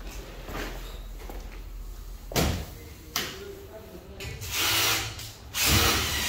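Power drill running overhead in two short bursts of about a second each in the second half, preceded by two sharp knocks a couple of seconds in.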